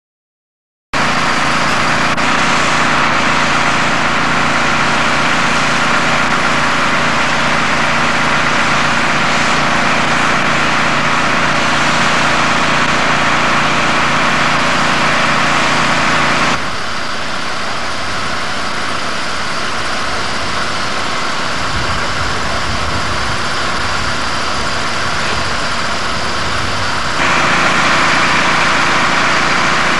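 Heavy vehicle engine idling steadily with a constant low hum and hiss. The level drops abruptly about halfway through and jumps back up near the end.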